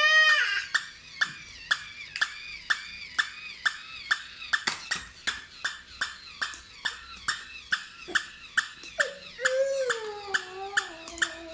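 Battery-powered toy dog barking over and over in short, tinny yaps, each with a click, about two to three a second in a steady rhythm.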